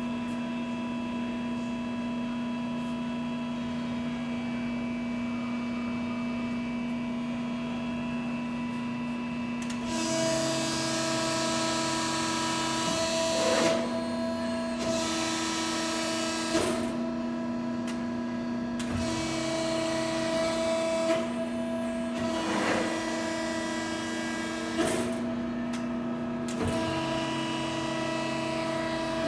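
Hydraulic press brake (Cincinnati 90-ton CNC) running: a steady motor-and-pump hum for about ten seconds, then a higher whine that switches on and off in stretches as the ram cycles, with several sharp clicks and knocks.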